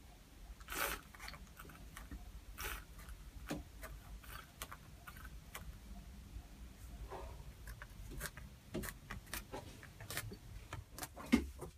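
Irregular small clicks and light taps in a confined space, the loudest about a second in and another near the end: a hand brushing and tapping the damp inside of the boat's hull.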